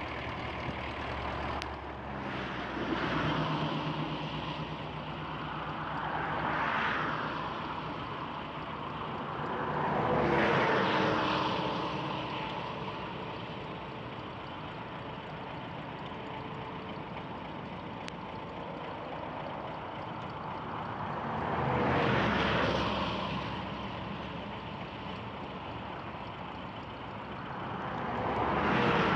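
Road traffic: vehicles passing one after another, each swelling up and fading away, over a steady background rumble.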